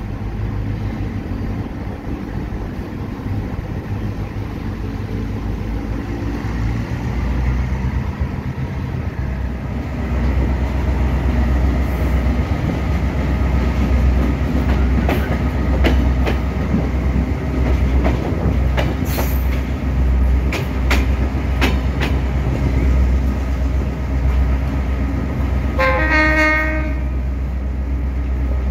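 Diesel locomotive engine running steadily, from an EMD GL18B hauling a passenger train, getting louder as the train gets under way. Wheels click over rail joints for several seconds, and the horn gives one short blast near the end.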